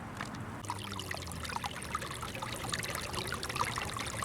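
Water trickling: a busy, irregular patter of small splashes that sets in about a second in, over a faint low rumble.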